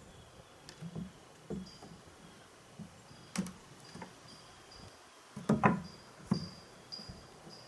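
Scattered knocks and clanks from handling the farm gates and their latch hardware, the loudest a short cluster about five and a half seconds in.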